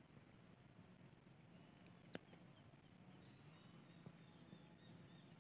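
Near silence: faint outdoor ambience with a few short, high bird chirps and a single sharp click about two seconds in.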